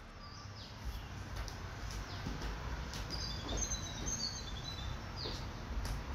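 Birds chirping with short high calls, some falling in pitch, over a steady low rumble of outdoor background noise.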